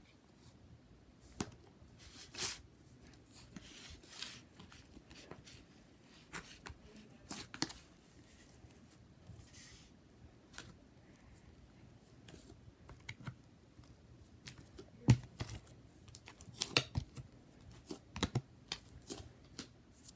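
Sticky slime being pulled by hand out of a plastic container: faint, irregular small clicks, crackles and tearing sounds as it sticks and comes away, with a busier run of louder clicks and pops near the end. The slime is too sticky to come out of the container easily.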